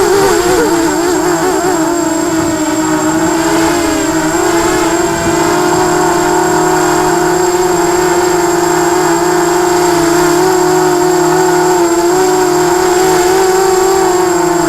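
Quadcopter's electric motors and propellers whining with a steady pitch. The pitch wobbles up and down over the first two seconds or so with throttle changes, then holds fairly level with small dips.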